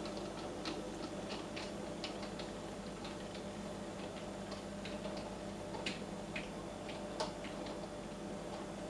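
A model tram locomotive on a Halling motor bogie running slowly with a train of small model wagons. A steady electric-motor hum runs under irregular light clicks of the wheels over rail joints and pointwork, with the sharpest clicks about six and seven seconds in.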